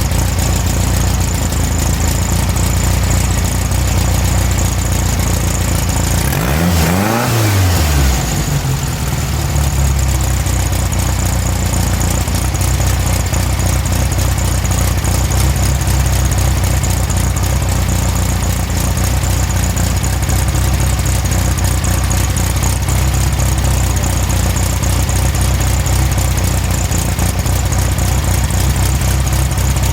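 Air-cooled VW Beetle flat-four engine running steadily on a newly fitted Magnaspark II electronic distributor, revved briefly up and back down about seven seconds in, then settling back to a steady run.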